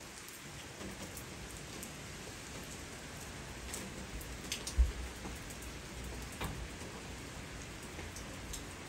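Rain falling steadily, with scattered sharper drop ticks close by. There is a brief low thump about halfway through.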